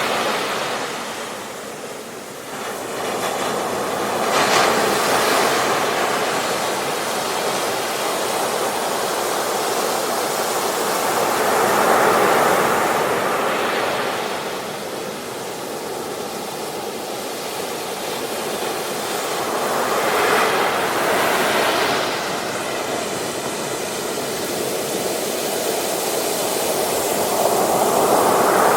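Ocean surf on a beach: waves breaking and washing in, the rush of water swelling and fading over several seconds with each wave.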